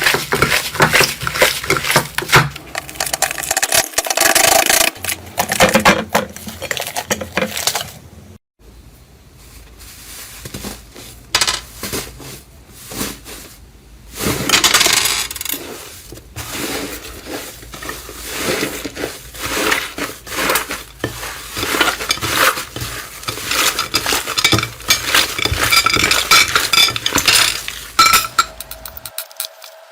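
Slime being squeezed and pressed by hand, giving dense crackling and clicking. It drops away briefly about eight seconds in, then starts again.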